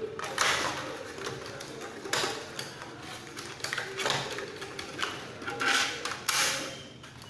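Hard plastic handling noises as a battery pack is pushed into a toy RC jeep's plastic body and the hood is pressed shut: several short clicks, knocks and scrapes at irregular intervals.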